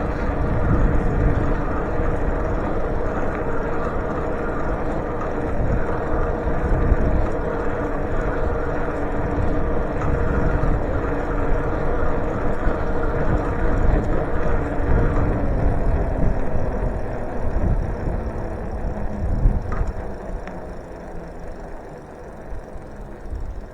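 Electric bicycle on the move: wind rumbling on the microphone and tyre noise, with a steady whine from the motor. It gets quieter over the last few seconds.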